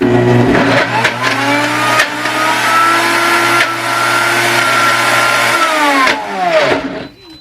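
Amzchef countertop blender motor spinning up with a rising whine, running steadily for about five seconds through a frozen fruit smoothie, then winding down to a stop near the end.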